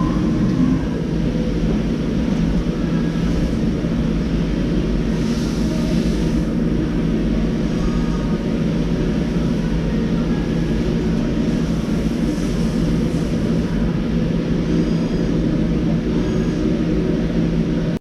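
DMG DMU 50 five-axis machining centre running under power: a steady mechanical hum with constant low tones. Two brief, faint hisses come about a third and two-thirds of the way through.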